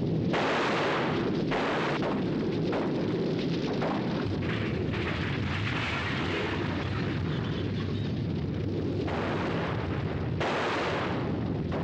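Film sound effects of an atomic bombardment: a continuous heavy rumble, with blasts breaking in again and again.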